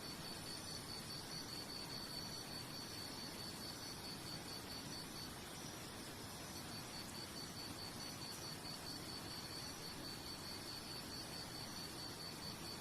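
A cricket chirping in a steady run of quick, high pulses, about four a second, with a short pause about five seconds in, over an even background hiss.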